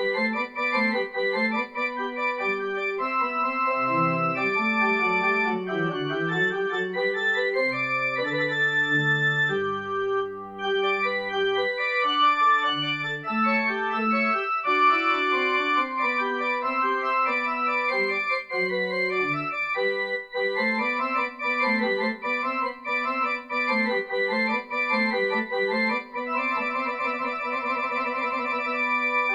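Instrumental keyboard music: held chords over a moving bass line, with no singing.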